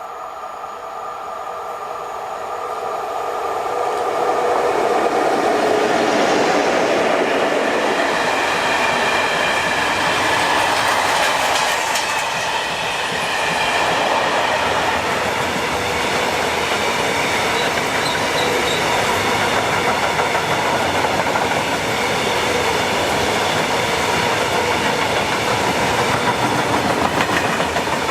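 A train approaching and passing close by, swelling over the first five seconds, then a steady loud clatter of wheels over the rails as the wagons roll past.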